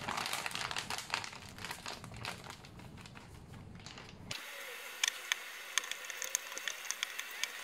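Plastic flour bag crinkling as wholemeal flour is poured from it into a stainless steel bowl. About four seconds in the sound changes abruptly to scattered light clicks as the dough is mixed by hand in the bowl.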